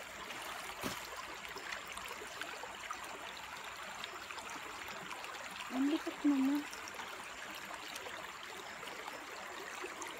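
Shallow, clear stream running over pebbles: a steady rush and trickle of water. About six seconds in, a person's voice makes two short sounds.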